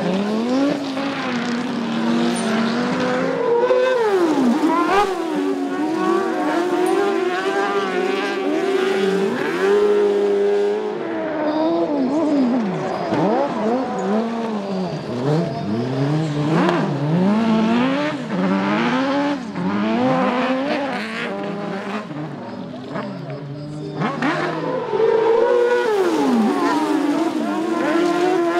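Autocross race cars and buggies flat out on a dirt track, several engines at once. Their pitch climbs and drops again and again as the drivers rev, shift and lift for corners, and cars pass close by.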